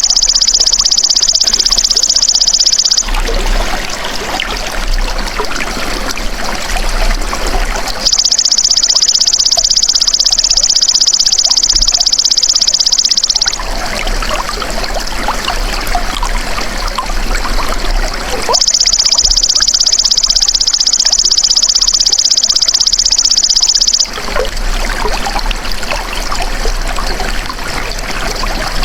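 Belalang emas (golden grasshopper) calling: a high, rapidly pulsed buzzing trill in bursts of about five seconds, three of them, with a fourth beginning at the very end. Between the bursts, trickling water.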